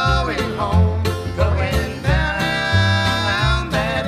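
Old-time string band playing an instrumental break: a held melody line that slides between notes, over plucked strings and a steady bass line.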